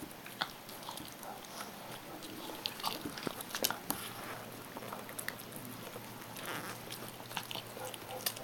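A dog chewing and gnawing a porterhouse steak bone: irregular crunches and clicks of teeth on bone, the sharpest about three to four seconds in.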